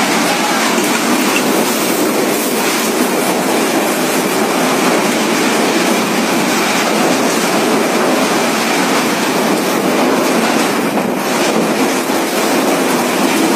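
Cyclone-force wind and heavy driving rain, a loud, steady rushing noise without a break.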